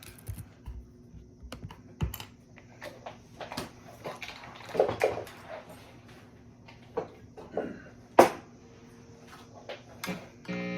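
Irregular clicks and taps of typing on a computer keyboard, with one sharp, louder click about eight seconds in.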